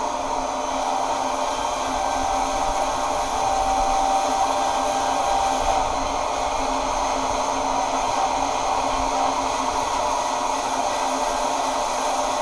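A power tool running steadily: a constant motor hum and whine over an even rushing noise, with no breaks.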